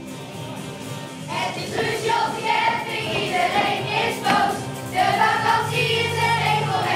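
A group of children singing in unison over an instrumental backing track, the singing coming in about a second in.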